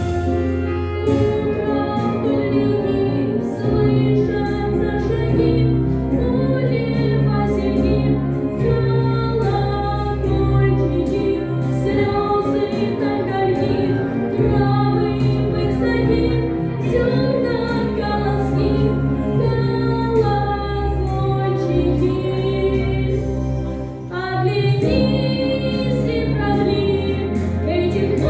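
A song: a voice singing a melody over sustained instrumental accompaniment with a steady bass line, with a brief drop in level near the end before the next phrase begins.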